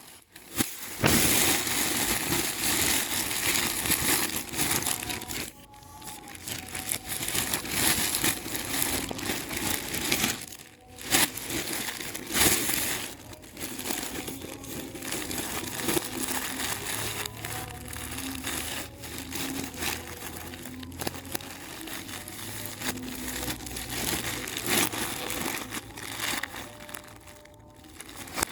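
Packaging material rustling and crinkling as it is handled and crumpled during unwrapping, in stretches with short pauses between them.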